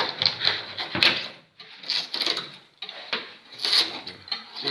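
Car body filler scraping and cracking as it is pried off a car's hood in sheets, in several short bursts with brief pauses. The filler comes away like a skin, the sign of a poor-quality body repair.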